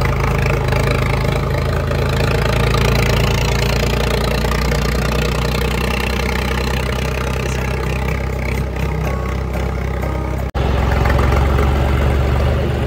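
Dump truck's engine running steadily, a loud low hum. The sound cuts out for an instant about ten seconds in.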